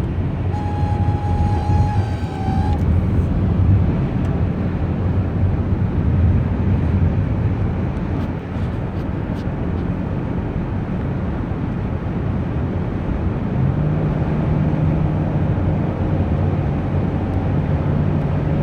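Cabin noise of a 2015 Chrysler Town and Country minivan driving: steady low road and engine rumble. A thin whine sounds for about two seconds near the start, and a low steady hum comes in about three-quarters of the way through.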